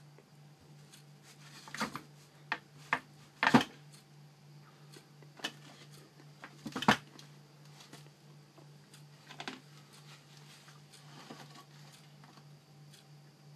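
Knocks and clatter from a wooden speaker baffle board and a sheet of paper being handled: a run of sharp knocks, the two loudest about three and a half and seven seconds in, then softer rustling and tapping. A steady low hum runs underneath.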